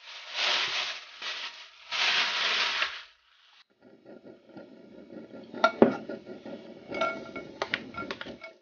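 A plastic bag crinkles loudly in bursts over the first three seconds as dough is wrapped in it. Then a wooden spoon knocks and scrapes in a stainless steel pan of oil and minced garlic, the pan ringing briefly at each knock, with a faint sizzle.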